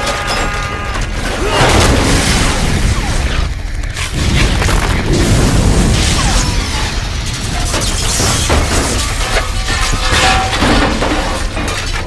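Film action-scene sound effects: an explosion with crashing, clattering debris and many sharp impacts, mixed with score music. It gets louder about a second and a half in.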